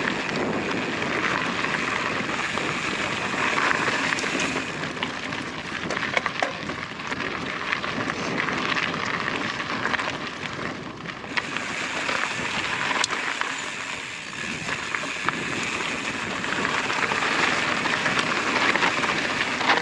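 Mountain bike riding noise: knobby tyres crunching steadily over loose, hard gravel, with scattered small clicks and rattles from the bike.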